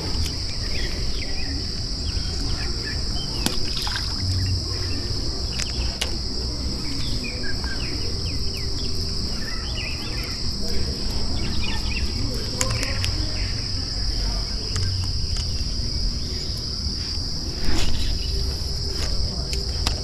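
Steady high-pitched trilling of crickets, with low rumble and scattered clicks from a fishing rod, line and lure being handled close by.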